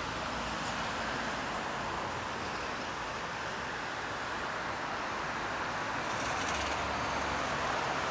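Steady road traffic noise from the busy street below, a continuous hiss of passing cars, with a deeper rumble joining in about six seconds in.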